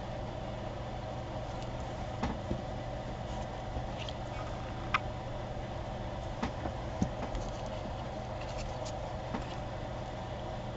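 Light clicks and taps of paper pieces being handled and pressed into place, a few scattered strokes with the sharpest about five and seven seconds in, over a steady low room hum.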